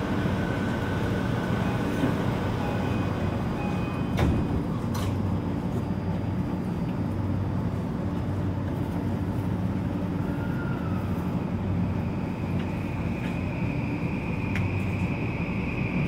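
Interior sound of a Tokyu 3020 series train car at a station stop and pulling away: a steady hum with air-conditioning noise and a sharp knock about four seconds in, then a steady high whine from about twelve seconds in.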